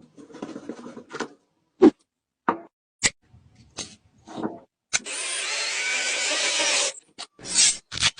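A series of short knocks and clicks, then a power tool runs steadily for about two seconds and stops.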